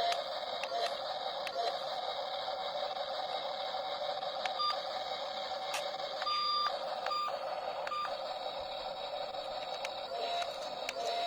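Toy remote-control backhoe loader's small electric motors and gears whirring steadily, with scattered clicks and a few short electronic beeps around the middle.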